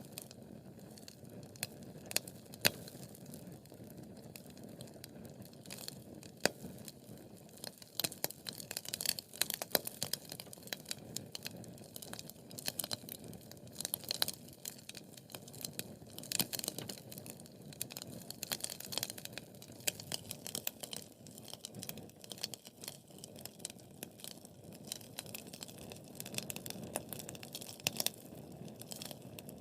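Wood fire burning with irregular sharp crackles and pops over a soft steady rumble of flames; the crackling is busiest in the middle stretch.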